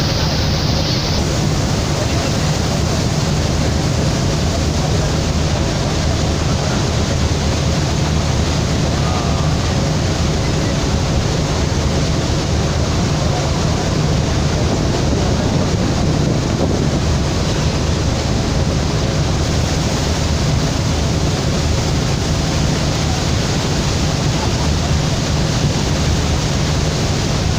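Steady rush of wind and water with a low engine drone underneath, as from a motorboat under way.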